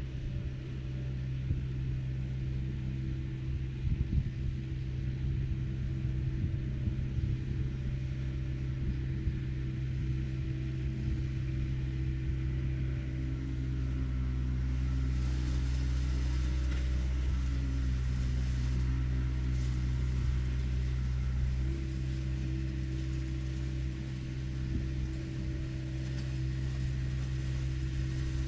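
Diesel engine of compact earthmoving equipment running steadily, with a few knocks in the first few seconds.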